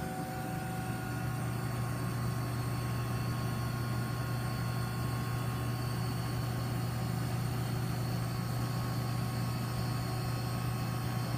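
Medium-temperature refrigeration unit running, its compressor and condenser fan giving a steady low hum with an even rush of noise over it.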